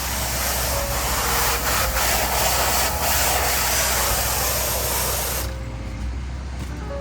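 Pressure washer spray hissing steadily from the wand as the house siding is rinsed down, over a steady low hum. The spray cuts off about five and a half seconds in.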